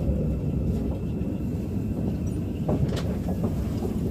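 Shinbundang Line subway train pulling out of the station into the tunnel, heard from inside the car: a steady low rumble of wheels and running gear, with a few sharp clicks from the rails about three seconds in.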